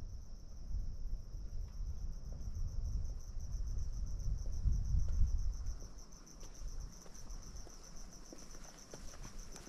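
Insects chirring in a steady, rapidly pulsing high trill, over a low rumble that swells in the middle. Faint footsteps on the asphalt road come in during the second half.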